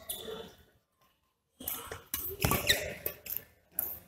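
Badminton rally: a few sharp racket strikes on the shuttlecock and short high squeaks of court shoes on the hall floor. They come after a brief dead gap about a second in.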